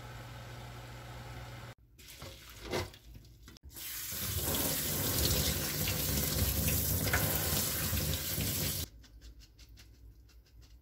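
Kitchen tap running hard over boiled soybean sprouts in a stainless mesh strainer in a steel sink: a cold-water rinse to keep them crisp. The water stops near the end and the strainer is shaken to drain, a quick rattling of about five shakes a second. A steady low hum comes first.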